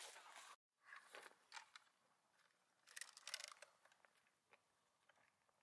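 Near silence, broken by a few faint crunching rustles about a second in and again around three seconds in. There is a brief dead gap about half a second in, where the audio is cut.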